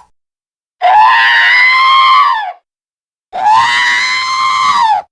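R2-D2's electronic droid scream, heard twice: two long, loud, shrill cries of about two seconds each, each rising slightly in pitch and then sliding down as it stops.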